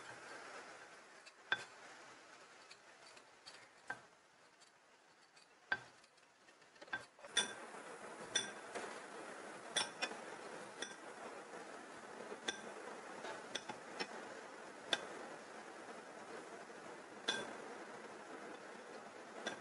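Kitchen knife slicing fresh ginger on a hard board: faint, irregular sharp taps of the blade, each with a short metallic clink, about one or two a second.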